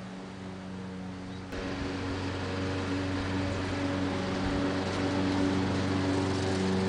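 Lawn mower engine running steadily, getting gradually louder as it comes closer.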